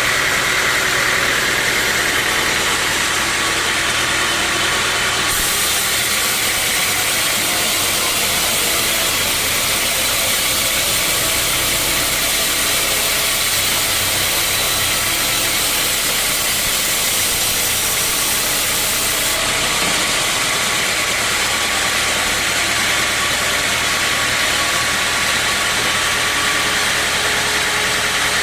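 Sawmill saw machinery running steadily. A harsher, brighter hiss comes in about five seconds in and falls away again about fourteen seconds later, consistent with the blade cutting through a teak log.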